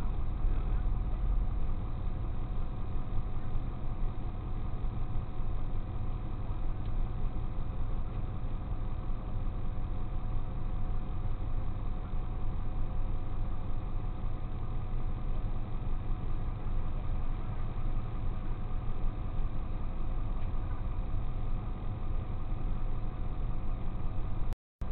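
Tow truck's engine idling steadily, heard from inside the cab, a constant low rumble with a faint steady hum over it. The sound cuts out for a moment near the end.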